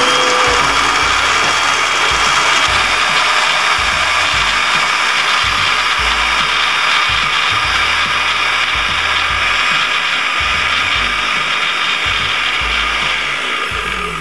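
Countertop blender motor running at steady high speed, puréeing basil, pine nuts, olive oil and cheese into pesto sauce, and starting to wind down at the very end.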